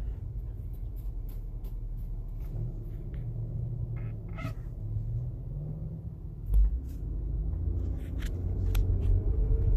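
Low, steady rumble of a car's engine and tyres heard inside the cabin while driving, with scattered light clicks and a single low thump about six and a half seconds in.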